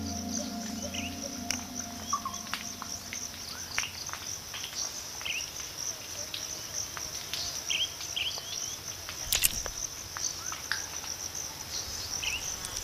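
Mangrove mudflat ambience: a steady high-pitched insect chorus with scattered short bird chirps and small clicks. A low music drone fades out in the first few seconds, and one short, sharp noise comes about nine seconds in.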